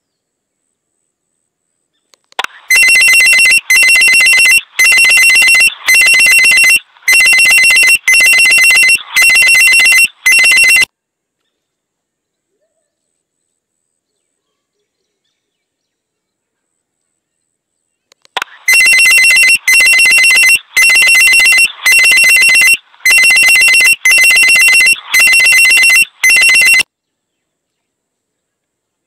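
Loud electronic ringing tone, a rapid trill on two high pitches, coming in two bursts of about eight seconds each. Each burst is made of about eight rings a second apart, with several seconds of silence between the bursts.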